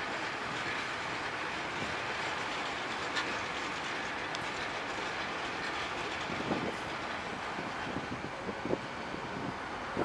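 GWR Class 800-series Intercity Express Train moving slowly through the station: a steady rumble with wheels clattering over rail joints and points, and a few louder knocks.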